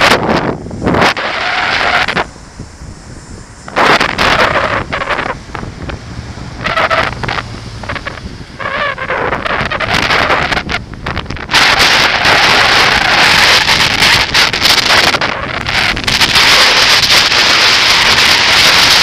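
Wind buffeting the microphone of a cyclist's camera while riding, with road traffic underneath. The noise comes in uneven gusts and turns into a loud, steady rush from about halfway through.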